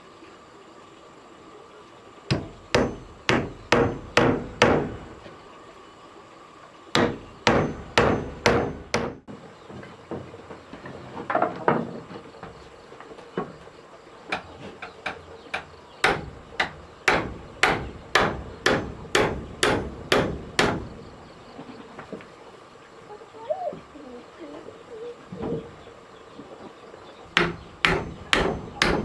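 Hammer striking wood in runs of several blows, about two a second, with short pauses between the runs.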